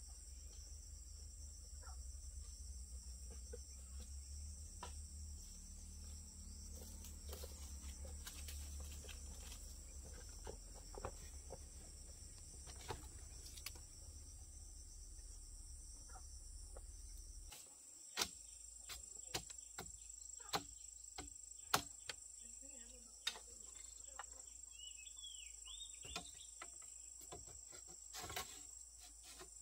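Insects chirring steadily in high, thin tones. From a little past halfway, scattered sharp knocks and clacks of bamboo poles being handled and set into a fence frame, a few seconds apart.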